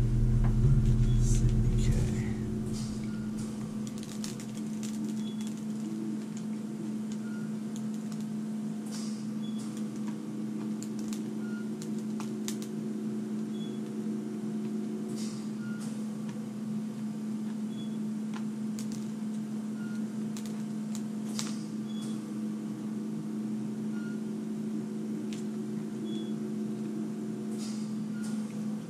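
Steady low electrical hum with faint short beeps about every two seconds, and scattered soft clicks and smacks of a donut being eaten. A louder low rumble stops about two seconds in.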